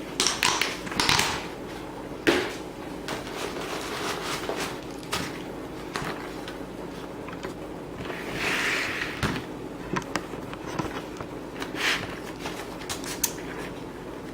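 A laminated plastic planner cover being pried off the binding of a thick planner: scattered sharp clicks and snaps with bursts of plastic and paper rustling.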